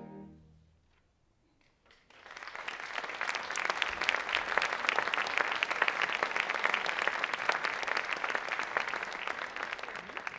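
The last sustained chord of a concert band dies away in the first half second. After a moment of silence, the audience breaks into applause about two seconds in, a dense clapping that continues.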